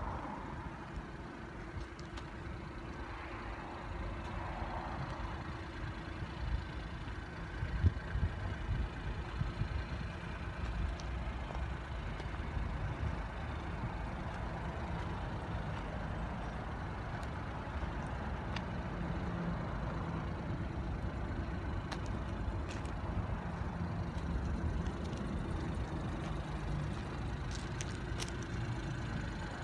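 Suzuki Carry DB52T kei truck's small three-cylinder engine idling steadily.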